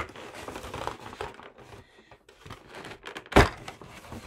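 Cardboard and clear plastic figure packaging being handled and pulled about, crinkling and rustling, with a sharp click at the start and one loud thump about three and a half seconds in.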